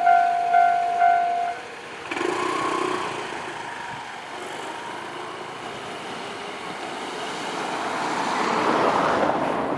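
Japanese railway level-crossing warning bell ringing about twice a second, cutting off about one and a half seconds in as the crossing clears. Then steady traffic noise, swelling to its loudest near the end as a vehicle passes.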